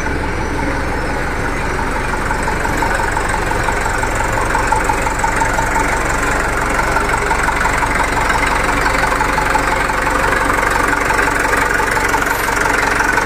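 Mitsubishi Fuso Canter truck's diesel engine idling steadily, with an even knocking clatter.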